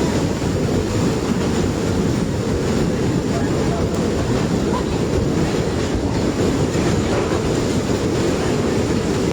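Floodwater rushing in a steady, heavy low rumble with no breaks.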